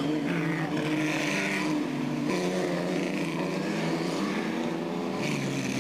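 Vintage single-seater racing car engines running hard as the cars pass in quick succession, the engine note stepping up and down in pitch several times.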